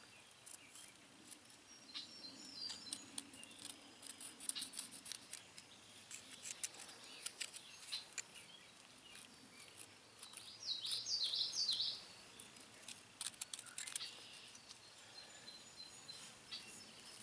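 Pencil point scratching around the edge of a slate piece as it traces onto a wooden round, heard as a run of small dry scrapes and ticks. About two-thirds of the way through, a bird gives a quick burst of chirps, the loudest sound.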